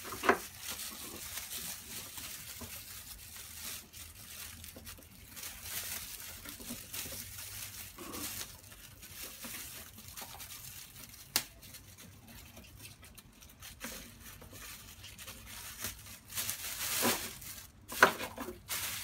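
Thin plastic carrier bag crinkling and rustling as it is handled and hooked over the arms of a trash bag holder. There is a sharp click a little past the middle and a louder flurry with a click near the end.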